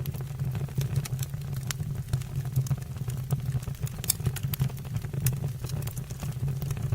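Wood fire burning, with crackling logs giving frequent irregular sharp pops over a steady low rumble.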